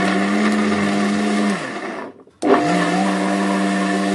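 Countertop blender motor running under load, puréeing steamed taro cubes with coconut milk. About two seconds in it is switched off and its pitch falls as it spins down. Half a second later it starts again and runs steadily.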